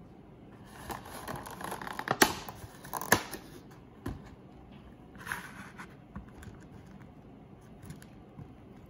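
Clear plastic strawberry clamshell crinkling as it is opened and handled, with two sharp plastic clicks about two and three seconds in. After that, a few soft knocks as strawberries are set into a plastic food container.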